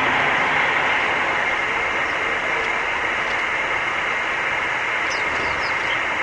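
Steady rushing background noise with no clear source, and three faint short high chirps from a small bird, falling in pitch, about five seconds in.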